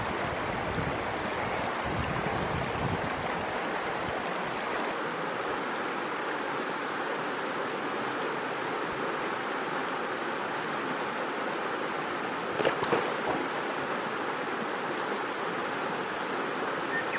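Steady rush of a shallow river running over stones, with wind buffeting the microphone for the first few seconds. About five seconds in the sound changes abruptly to a smoother water rush, and a few brief clicks come about two-thirds of the way through.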